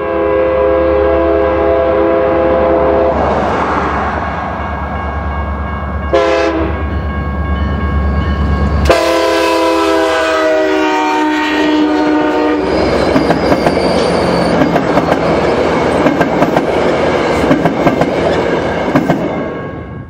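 New Mexico Rail Runner Express commuter train sounding its multi-chime horn as it approaches, a long blast, a short one and another long one, over a low diesel drone. It then runs close past with a loud rumble and clatter of wheels on rail that fades near the end.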